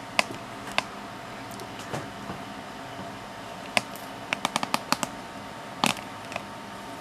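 Scattered sharp clicks and taps from handling equipment on a bench, with a quick run of about six clicks a little past four seconds and a louder knock near six seconds, over a steady electrical and fan hum.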